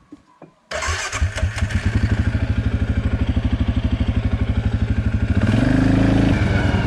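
Stels Leopard ATV engine running with an even pulsing beat, starting suddenly under a second in and picking up revs about five seconds in.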